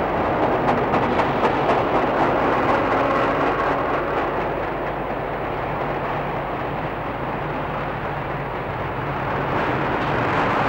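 Steady rumbling vehicle noise, with a run of faint clicks and clatter in the first couple of seconds, easing a little in the middle before building again near the end.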